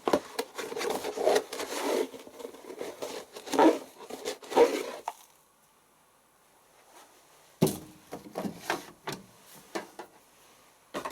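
Washing powder being scooped and tipped into a washing machine's detergent drawer: a rough scraping rustle for about five seconds. After a short pause comes a run of knocks and clicks as the drawer and containers are handled.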